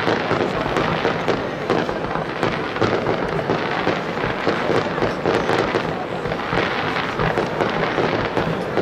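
Aerial firework shells bursting in a dense, unbroken barrage: overlapping bangs and crackling, with no pause.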